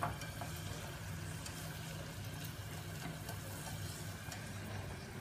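Chopped onion frying gently in butter and olive oil in a stainless steel saucepan, a faint sizzle with small crackles, stirred with a spatula; the onion is just starting to soften, the first stage of a risotto. A light knock right at the start and a steady low hum underneath.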